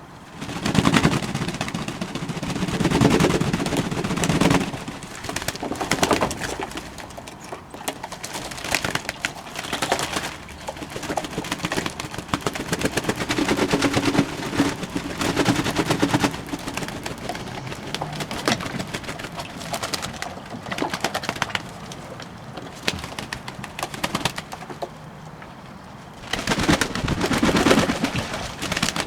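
Fantail doves bathing in a shallow bowl of water: rapid, continuous splashing and wing-flicking. A dove coos low three times, about a second in, around halfway and near the end.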